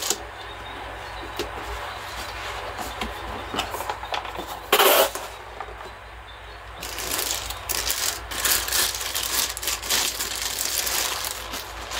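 Cardboard gun box being handled as its lid is lifted off and stood up. A loud scraping rub comes about five seconds in, followed by several seconds of rustling and small clicks from the packaging.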